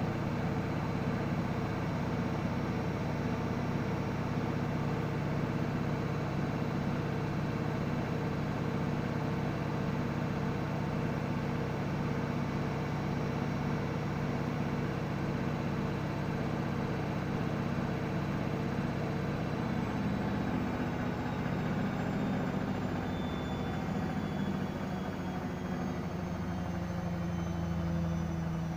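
Washing machine running on a vibrating spin, a steady mechanical hum. About twenty seconds in the tone shifts, and near the end some pitches slide downward.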